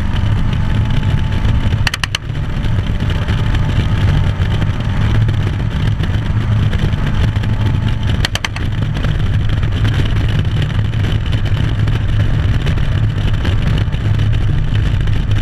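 Car engine running hard with road noise, heard from inside a moving car at speed; the sound dips briefly twice, about 2 and 8 seconds in.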